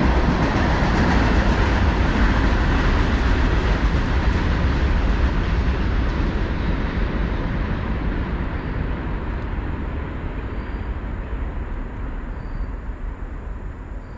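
Steady noise of a passing vehicle, loud at first and slowly fading away as it recedes. Faint short high chirps come every couple of seconds near the end.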